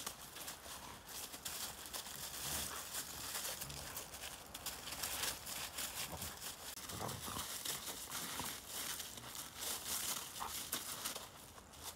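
Two puppies wrestling on snow and dry leaf litter: continuous crunching and crackling of paws scuffling and scrabbling through the snow and leaves.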